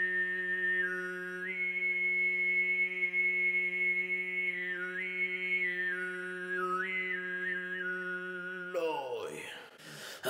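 Tuvan sygyt throat singing by one male voice: a steady low drone on one note with a bright, whistle-like overtone held above it. The overtone holds high, then dips and climbs back several times in a simple melody. The singing breaks off near the end.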